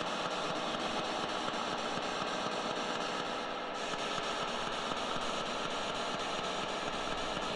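Steady hiss of static-like noise with a faint hum running through it, unchanging and without distinct events.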